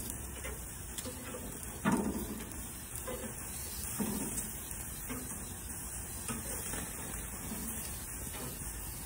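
Ribeye steaks sizzling on a gas grill while they are flipped with metal tongs, with a few knocks and clinks of the tongs on the grate, the loudest about two seconds in and another about four seconds in.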